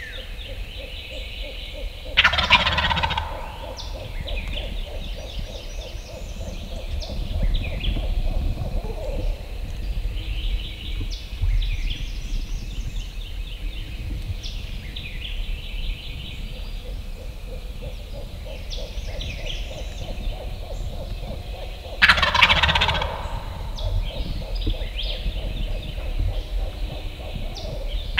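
Wild turkey gobbler gobbling loudly, twice about twenty seconds apart, with another gobble starting right at the end. Small songbirds chirp in the background.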